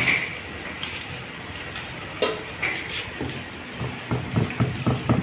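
A metal ladle clinking and scraping in a wok as vegetables are stir-fried. From about three seconds in, a cleaver chops quickly on a wooden board in a run of dull knocks.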